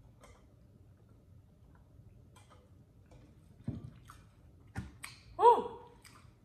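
Mouth sounds of drinking through a straw and swallowing: faint clicks, a soft gulp about three and a half seconds in, then a short hummed voice sound, the loudest moment, near the end.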